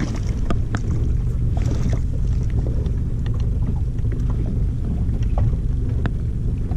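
Steady low rumble of wind on the microphone and water around a small boat, with scattered light clicks and taps from the rod and reel as a small fish is reeled up.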